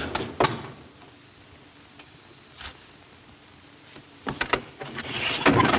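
Telephone booth being handled: a few light clicks, then a quick cluster of knocks about four seconds in and a louder rattling clatter near the end, over the steady hiss of an old film soundtrack.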